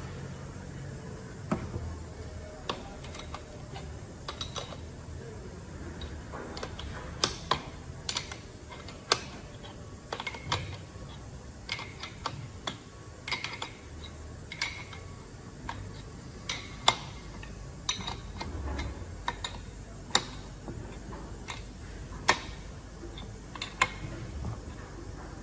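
Irregular metallic clicks, taps and clinks of tools and metal parts being handled while a brake chamber is fitted onto a heavy-truck air disc brake caliper.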